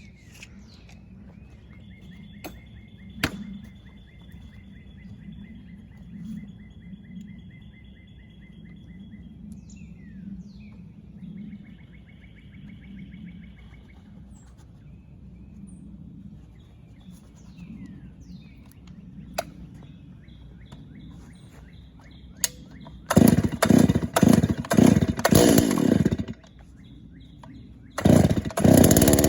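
A Holzfforma G388 72 cc two-stroke chainsaw starting up. After a long quiet stretch with birds chirping, it fires and runs in uneven bursts for about three seconds, cuts out, then starts again near the end and keeps running.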